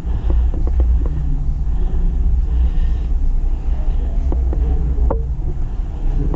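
Steady low rumble on the microphone, with scattered light clicks and one sharper click about five seconds in.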